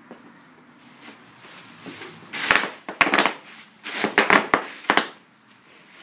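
Bubble wrap being trampled by a horse's hooves: clusters of sharp pops with crinkling plastic, starting about two seconds in and stopping about a second before the end.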